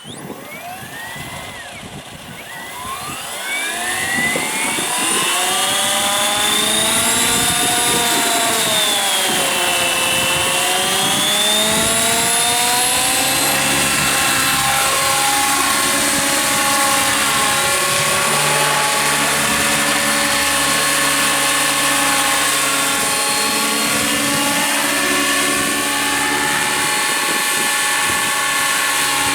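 Radio-controlled scale Bell 222 helicopter spooling up: its motor and rotor whine rises in pitch over the first few seconds, wavers up and down, then holds steady as it runs at speed.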